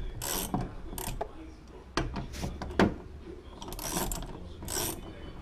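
Hand tool working the bolts that clamp a rooftop evaporative cooler's inner frame to a VW Kombi's roof, in repeated short rasping strokes with two sharp clicks, the louder a little under three seconds in. The bolts draw the frame up so it presses the cooler's rubber seal and holds firm.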